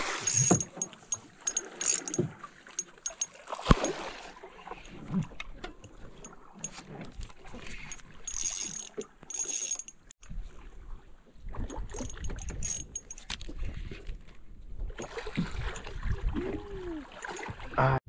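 Knocks, clicks and water splashing in a small open boat as a peacock bass is netted at the surface and lifted aboard in a landing net, with one sharp knock a few seconds in.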